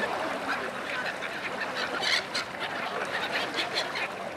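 A large mixed flock of gulls and ducks calling over one another, a dense, constant chatter of many short squawks and quacks.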